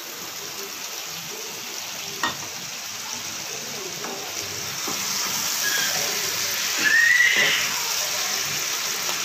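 Mutton and fried potatoes sizzling in hot oil in a pan while being stirred with a wooden spatula. The sizzle grows louder from about five seconds in. There is a single knock about two seconds in and a short high squeak near seven seconds.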